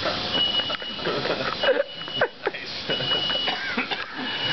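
Smoke alarm beeping, about four high beeps roughly a second and a quarter apart, set off by the smoke from the birthday candles. Laughter and voices around it.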